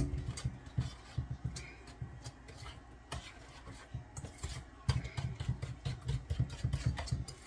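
A spoon stirring a butter, brown sugar, cinnamon and flour topping in a stainless steel bowl: irregular scraping and knocking of the spoon against the metal, with a sharp knock right at the start.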